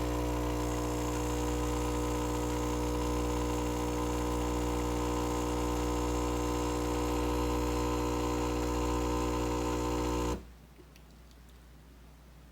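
Steady electrical hum with many even overtones, which cuts off abruptly about ten seconds in.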